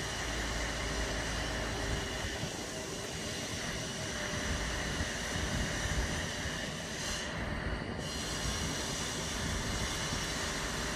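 Steady running hum and hiss of parked refrigerated trucks, with a deeper rumble in the first second or so.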